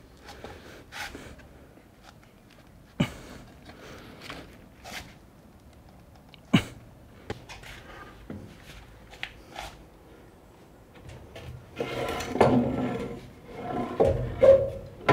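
Heavy wooden timbers being slid out from under a table saw: a few sharp wooden knocks and small clicks, then a louder, longer stretch of scraping and knocking near the end.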